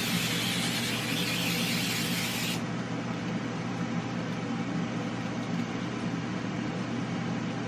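Cooking-oil spray hissing steadily onto raw chicken drumsticks, cutting off about two and a half seconds in. A steady low hum runs underneath throughout.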